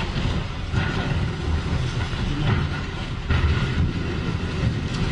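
Box truck tumbling off a freeway ramp and crashing down onto wrecked vehicles below, with several knocks and scraping debris over a steady low rumble, picked up by a phone's microphone. The clatter grows louder about three seconds in as the truck lands.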